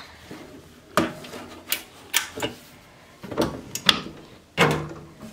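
A Vevor hat heat press and a hat being handled: about seven sharp clicks and clunks at irregular intervals as the hat is fitted on the curved platen and the heat plate is lowered over it.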